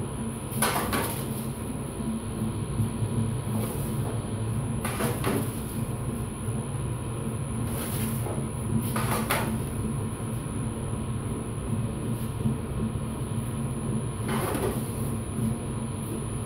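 Metal cake tins scraped and slid out of a commercial deck oven and set down, four short scraping clatters a few seconds apart, over a steady low hum.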